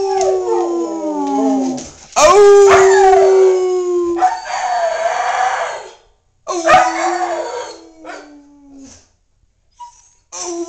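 Siberian husky howling: a string of long howls, each holding a note and then sliding down in pitch, with short breaks between them. After a quiet pause of a second or two, another howl starts near the end.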